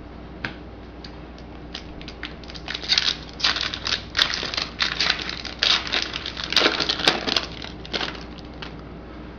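A foil trading-card pack wrapper being torn open and crinkled, with a few clicks, then a dense run of crackly rustling from about two and a half seconds in until about eight seconds.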